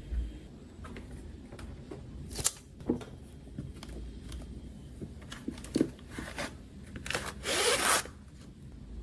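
Close-up handling of storage items: scattered sharp clicks and knocks, then a rasping, zipper-like sound lasting under a second near the end.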